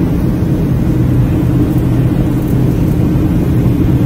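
Steady cabin noise of a jet airliner in flight on its descent: engine and airflow drone, an even low hum that does not change.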